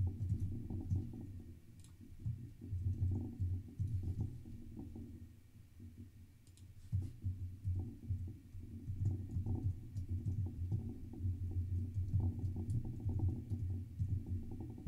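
Computer keyboard typing in short, irregular runs, with a quieter lull about halfway through.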